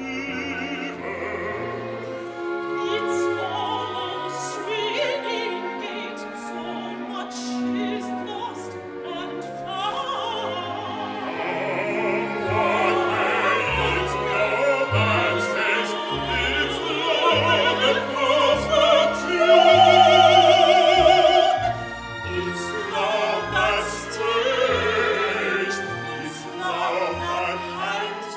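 Operatic singing with orchestra: a woman's voice sings with vibrato over sustained strings, swelling to a loud held high note about twenty seconds in.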